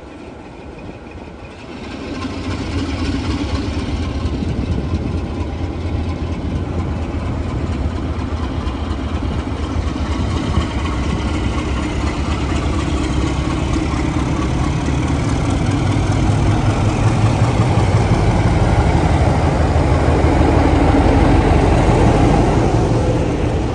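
Class 33 diesel locomotive 33202's Sulzer eight-cylinder engine opening up about two seconds in and working hard as it pulls a passenger train away from a standstill. It grows louder as the locomotive draws near and passes.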